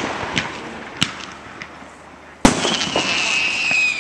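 Fireworks going off: scattered pops and a bang about a second in, then a loud sharp bang about two and a half seconds in. After the loud bang comes a firework's whistle that glides slowly down in pitch.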